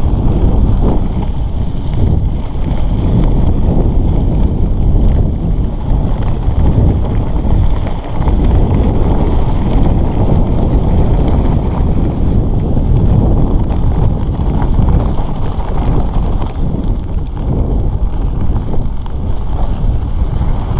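Steady, loud wind rumble buffeting the microphone of a camera riding on a moving bicycle, with the tyres rolling over a gravel dirt road underneath.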